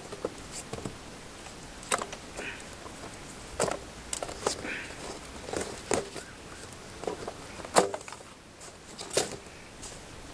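Irregular clicks and light knocks of metal jubilee clips being fitted and fastened around a plastic drain-pipe tube to hold a wooden camera mount in place.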